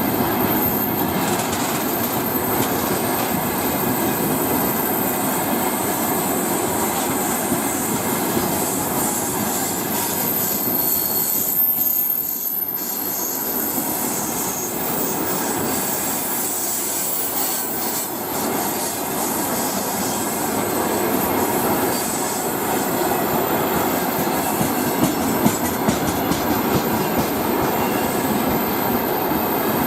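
Freight train rolling past at speed: a steady rumble of wagon wheels on the rails, with a few sharper clicks about 25 seconds in.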